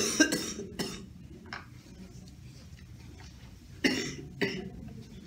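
Chalk knocking and scratching on a chalkboard while writing: a few sharp taps in the first second, another at about a second and a half, and two more near the four-second mark.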